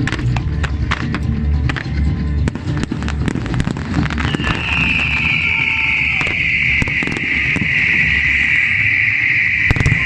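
A fireworks display set to music: repeated sharp bangs and crackles from shells and comets over a music track with a steady bass beat. About four seconds in, a loud, high hiss sets in and holds.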